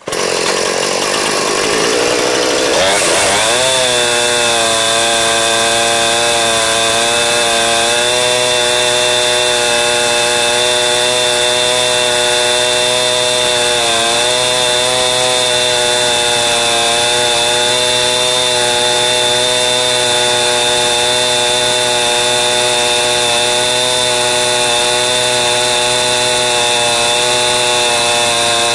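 Chainsaw fitted with a ripping chain, throttled up abruptly, its pitch rising over the first few seconds, then running steadily under load as it rips lengthwise through a birch log, with slight dips in pitch now and then.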